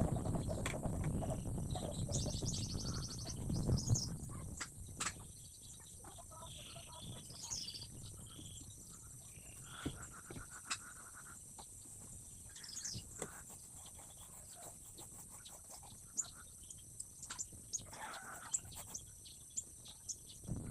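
Birds chirping and trilling over a steady high insect drone, with scattered sharp clicks and a low rumble in the first few seconds.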